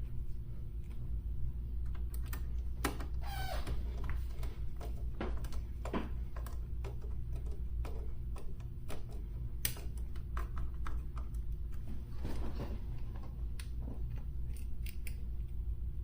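Scattered light clicks and taps of a radio's parts being handled and fitted back together, under a steady low hum.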